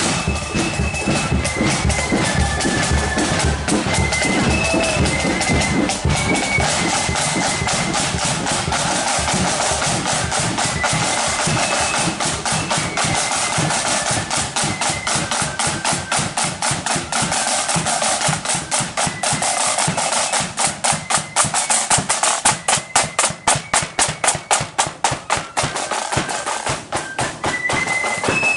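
Marching flute band's drum section, snare drums and bass drum, playing a steady marching beat, the strokes sharper and more distinct in the second half.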